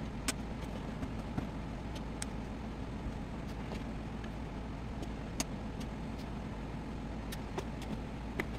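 Steady low machine hum from the running welding and power equipment, with a handful of light clicks and taps scattered through it as a gloved hand works the power station's controls.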